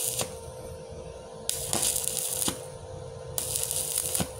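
Stick-welding (MMA) arc from an IGBT inverter welder at 80 amps, crackling and sizzling in three stretches with short, quieter lulls between. The arc sound is smooth, not harsh.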